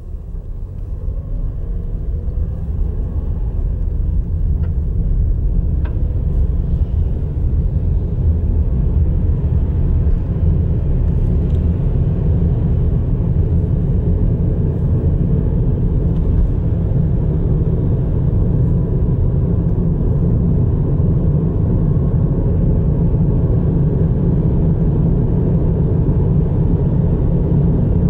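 Steady low road rumble of a car driving along a highway, heard from inside the cabin, swelling over the first few seconds and then holding even.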